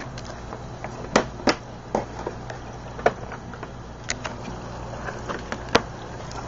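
Steady low hum of running aquarium equipment, with about six sharp knocks and clicks scattered through it, the loudest about a second in and near the end.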